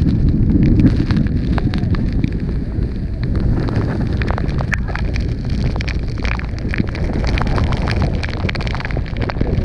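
Roar of Niagara's Horseshoe Falls close up, mixed with heavy wind buffeting the microphone, loudest in the first second. Many small sharp crackles and pops run through it, from spray and rain striking the microphone.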